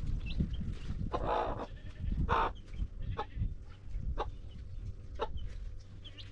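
Chickens calling: short high chirps, two longer harsher calls in the first few seconds, then single short clucks about once a second, over a steady low rumble.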